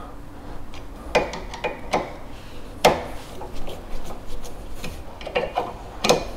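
Allen key working the bolts of a steel tow-bar lock bracket clamped under the tow-ball, giving irregular sharp metallic clicks and ticks with some rubbing as the bolts are tightened.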